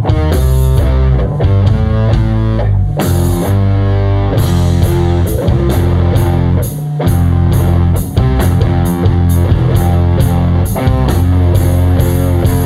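Instrumental rock band playing live: guitar riffs over bass and a drum kit. The music thins briefly about three seconds in, then the drums return with fast, even cymbal strokes.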